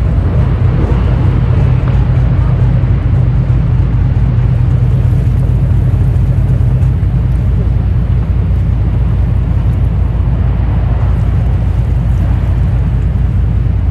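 Steady low rumbling drone of a boat's engine, mixed with the dull rumble of glacier ice collapsing into the water, with faint voices now and then.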